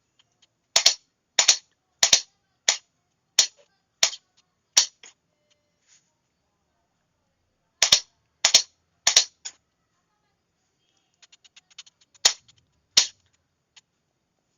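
A Morse sending key clicking as letters are sent. Each press and release gives a sharp pair of clicks, in a run of seven, a pause, then three more. Near the end come a few faint rapid ticks, then two more loud clicks.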